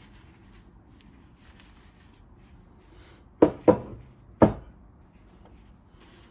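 Heavy cast aluminium bronze pieces, an ingot and a cast disc, set down on a wooden workbench: three sharp knocks about halfway through, two in quick succession and a third just under a second later. Gloves rub and handle the metal before and after.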